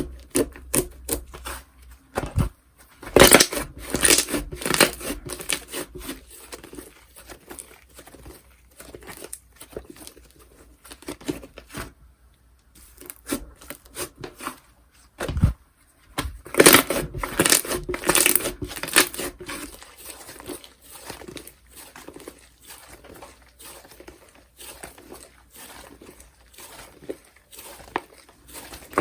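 Slime being stretched, pressed and torn apart by hand, giving irregular sticky crackles, clicks and tearing sounds that come in bunches, loudest a few seconds in and again after about sixteen seconds.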